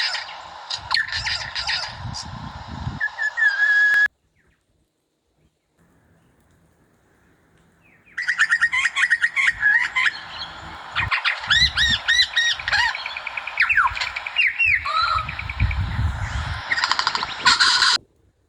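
Lyrebird singing a long, varied run of chirps, whistled notes, trills and squawks, typical of its mimicry of other birds' calls. The song stops about four seconds in and starts again after about four seconds of near silence, with low rumbling under parts of it.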